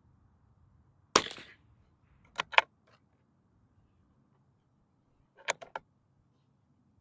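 A single .22 Long Rifle shot from a Walther bench rest rifle about a second in. It is followed by two clusters of sharp metallic clicks, one shortly after the shot and one near the end.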